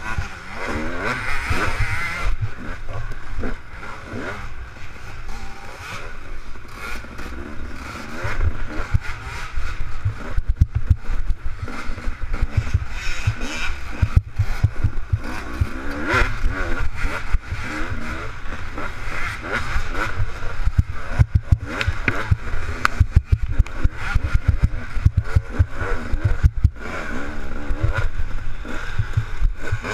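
KTM 250 XC two-stroke dirt bike engine racing, its pitch rising and falling as the throttle is worked, over a constant run of short low thumps.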